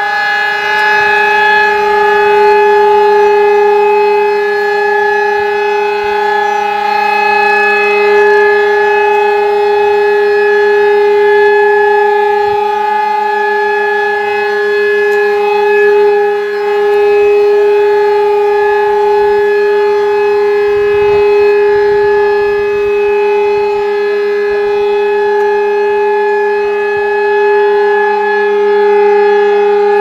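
Sentry 16V2T-B outdoor warning siren sounding a loud, steady tone on its automatic weekly timer test. The pitch holds level, with only slight swells in loudness.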